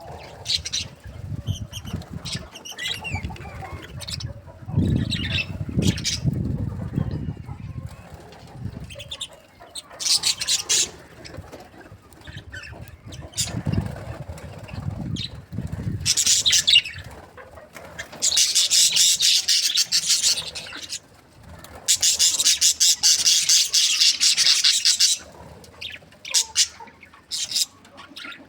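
A group of budgerigars chattering and chirping in bursts of dense, high twittering, with two longer loud stretches past the middle, and wing flapping mixed in.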